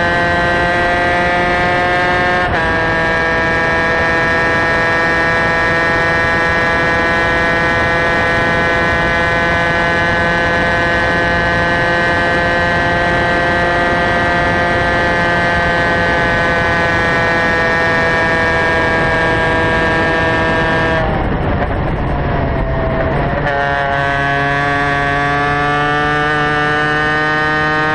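Superkart's two-stroke racing engine running flat out at high revs, with wind rush. About two and a half seconds in the pitch drops at a gear change, then climbs slowly along the straight. Near the end it falls away into a rough off-throttle sound for a couple of seconds as the kart brakes for a corner, then the revs rise steadily again.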